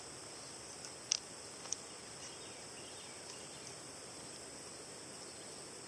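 Faint, steady high-pitched chorus of insects, with two brief high chirps about a second in.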